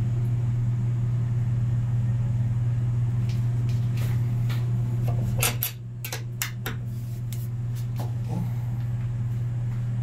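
A steady low hum, with a string of sharp metallic clicks and clacks from about three seconds in as the steel swing arm of a 90-degree bolt latch is worked by hand against its catch.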